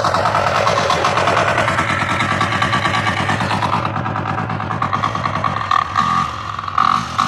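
KisanKraft KK-IC-406D intercultivator's diesel engine running steadily under load while its weeding tines churn the soil. It is loudest as it passes close, grows a little quieter and duller after about four seconds as it moves away, and has two brief louder surges near the end.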